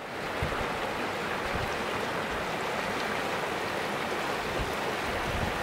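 Steady rushing noise like running water, fading in at the start and holding even throughout.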